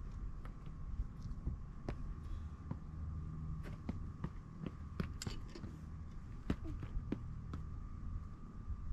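Irregular footsteps crunching on rocky ground, over a steady low rumble and a faint steady hum.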